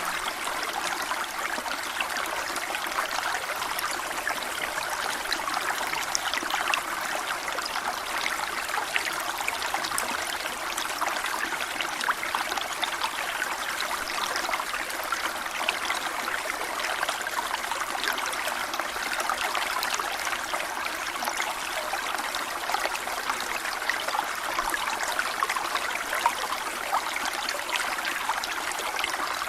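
A small stream flowing steadily over stones, a continuous babbling and trickling of water.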